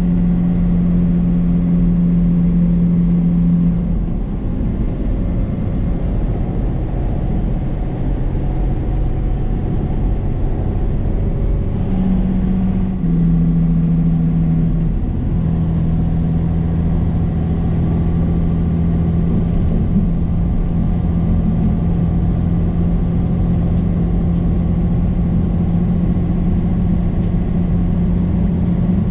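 Semi-truck engine and road noise heard from inside the cab while driving: a steady drone whose pitch drops about four seconds in, then comes back and settles around twelve to fifteen seconds in.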